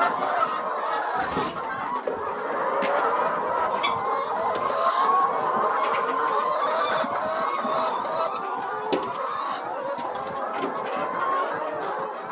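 A large flock of brown laying hens clucking and calling continuously, many voices overlapping into a steady chorus, with a few sharp clicks scattered through it.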